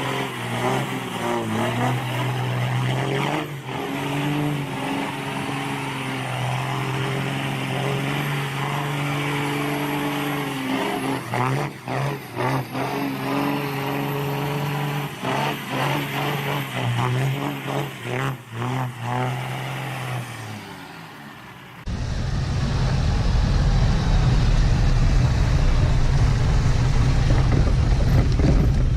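A vehicle engine running steadily for about twenty seconds, with a few short dropouts. It then cuts suddenly to a louder, deep rumble of heavy machinery or truck noise.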